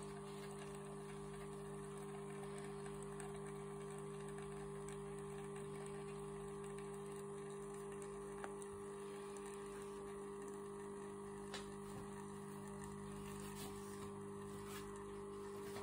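Lavazza Idola capsule coffee machine's pump humming steadily as it brews espresso into a cup, with two faint clicks in the second half.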